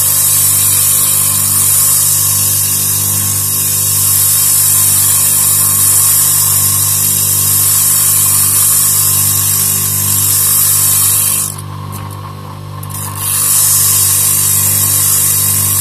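Small lathe motor running steadily with the hiss of sandpaper shaping a spinning cork float body. Near the end the sanding hiss drops out for about a second and a half, leaving only the motor's hum, then resumes.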